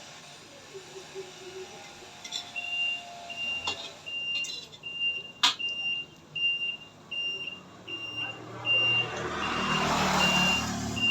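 A steady series of short, high electronic beeps, a little more than one a second, starting a couple of seconds in. A single sharp click comes midway, and a rumbling noise swells up near the end.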